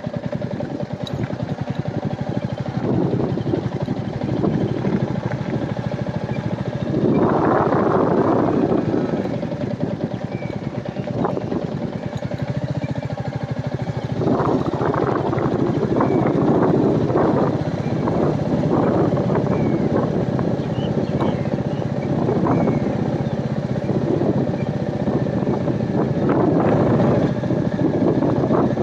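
Royal Enfield Meteor 350's single-cylinder engine running steadily as the motorcycle rides a rough off-road track, with louder stretches of rough noise coming and going every several seconds.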